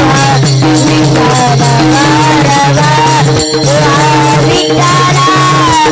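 Marathi devotional kirtan music: a wavering sung melody over a steady low drone, with jingling hand percussion keeping a brisk beat.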